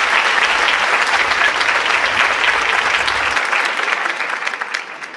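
Audience applauding, a dense clapping that fades away near the end.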